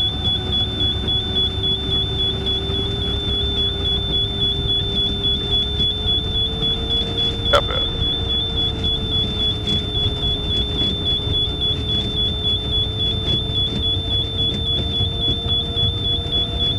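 Glider's landing roll: a steady low rumble of the wheel running along the runway as it slows, with steady electronic tones over it, one of them slowly rising in pitch. A single sharp click about halfway through.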